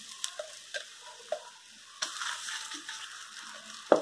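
Coarse-ground chana dal paste sizzling on a hot, oiled iron dosa tawa, with a few soft pats and taps as a hand presses it out flat.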